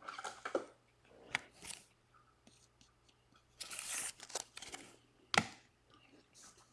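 Faint handling of trading cards and their packaging: scattered soft rustles and small clicks, with a sharper click about a second in and another near the end.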